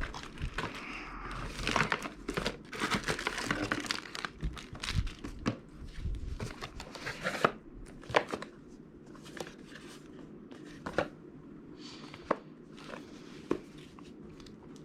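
Packaging being unwrapped and handled: dense crinkling and rustling with many small clicks, thinning after about seven seconds to a few separate clicks and taps.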